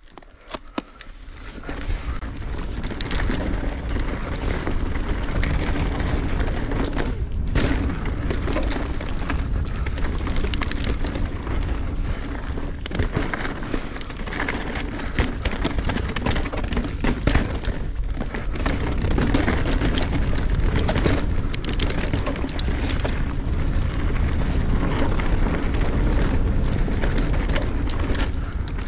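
Mountain bike riding down a dirt and rock trail heard from an on-bike action camera: wind buffeting the microphone with a heavy rumble, tyres rolling over dirt, and frequent sharp clicks and knocks as the bike rattles over rocks. The noise builds up over the first two seconds as the bike gets going.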